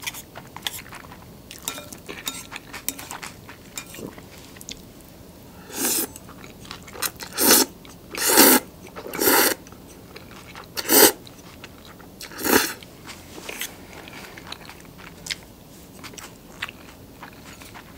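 Close-miked woman's mouth chewing with small wet clicks, then slurping abura soba noodles in about six loud slurps starting about six seconds in, then chewing again.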